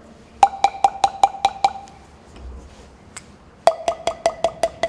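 Palm pipes, tuned hollow tubes, struck repeatedly against the palm: a quick run of about seven pitched taps on one note, then after a pause a second run of about seven taps on a lower note from a different pipe.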